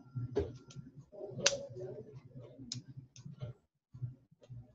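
Scattered faint clicks, about half a dozen in the first three seconds with the loudest about a second and a half in, over a faint low murmur of voice, heard through a video-conference line. It goes quiet near the end.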